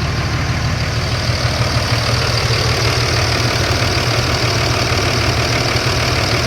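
Cummins diesel engine idling steadily with about 200,000 miles on it, running smoothly with little shaking, which the owner credits to a fresh oil change with anti-friction additive.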